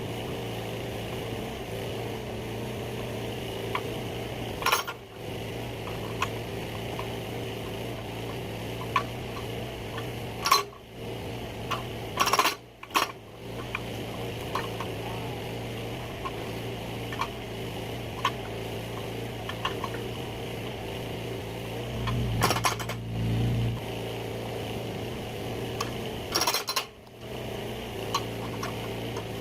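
Mini excavator engine running steadily, with about five sharp knocks and clanks at irregular intervals, two coming close together roughly halfway through, as firewood is split.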